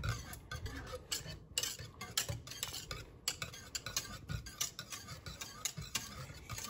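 A wire whisk stirring thickening semolina in a stainless-steel pot, its wires clicking and scraping against the metal sides in quick, irregular strokes as the mixture thickens into fufu.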